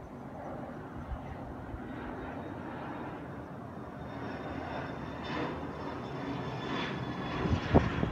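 Jet airliner climbing overhead, its engine noise a rough rumble that grows louder through the second half. A sharp bump on the microphone comes near the end.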